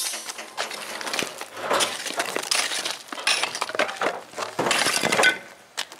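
A pickaxe strikes and pries out an old concrete curb footer in repeated blows about once a second. Broken concrete chunks crack and clink against each other.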